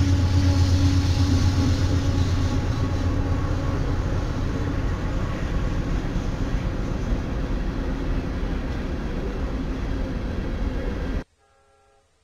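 Diesel freight locomotives passing close by, their engines running with a steady low drone over wheel and rail noise, easing slightly as they go by. The sound cuts off abruptly to near silence about eleven seconds in.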